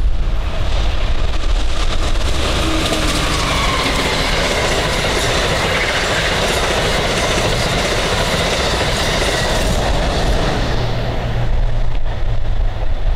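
Amtrak passenger train of Amfleet coaches passing at speed: steel wheels clattering on the rails with a rush of air. The noise builds about two seconds in and thins out near the end as the last cars go by.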